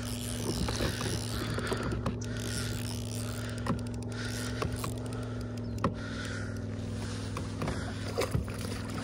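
A largemouth bass being reeled in to a kayak on a baitcasting reel: scattered light clicks from the reel and line, then splashing near the end as the fish thrashes at the surface beside the boat. Under it runs a steady low two-pitch hum, which shifts slightly about six seconds in.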